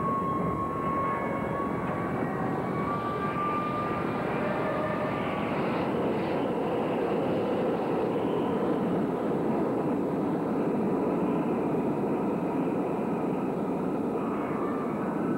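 A steady droning roar with faint high tones above it that slowly waver in pitch; no impacts or crash sounds are heard.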